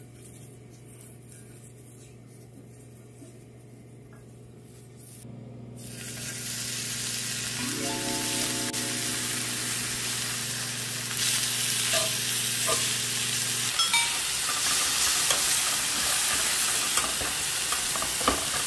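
Strips of pork belly sizzling on a hot round grill pan, the sizzle starting about a third of the way in and growing louder, with a few clicks of metal tongs on the pan. A low steady hum runs under the first two-thirds and then stops.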